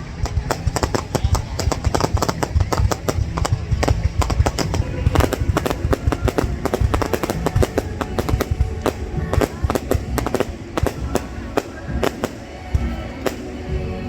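Fireworks going off in quick succession, a dense string of sharp bangs and crackles several times a second over a low rumble, with music playing underneath.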